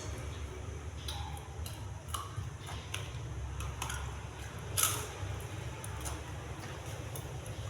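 Eating sounds: scattered small clicks and mouth noises of someone eating, with a sharper, louder one about five seconds in, over a steady low hum.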